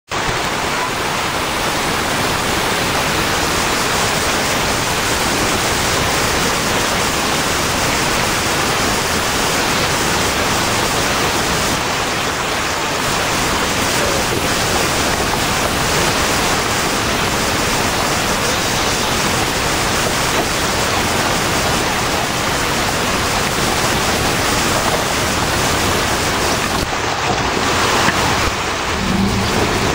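Steady, loud rushing of fast-flowing creek water, an even hiss with no rhythm that covers the engine of the SUV crawling over the rocks.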